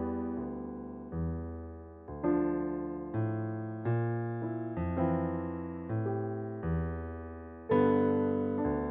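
Slow solo piano music: chords struck about once a second, each left to ring and fade, with a louder chord near the end.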